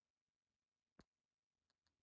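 Near silence, with a single faint click about a second in and a few fainter ticks near the end.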